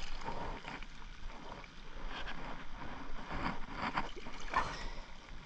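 Wind buffeting the microphone, with water splashing and sloshing around a large hooked fish in the shallows, and a few short rustles.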